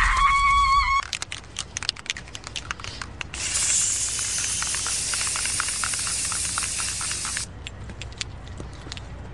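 A girl's high-pitched scream that cuts off about a second in, followed by scattered clicks and then a steady hiss of about four seconds that starts and stops abruptly.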